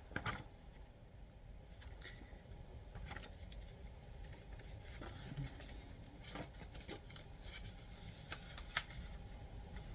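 Faint handling noise of a plastic 4K disc case and its paper cover insert, with scattered light clicks and rustles spread through the stretch.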